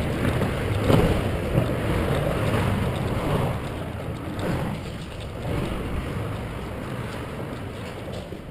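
Steady rushing noise of road traffic and wind on the microphone, slowly growing quieter.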